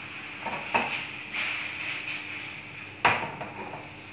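A few knocks and clatters of bowls and utensils being handled on a kitchen counter, the sharpest about three seconds in, over a faint steady hum.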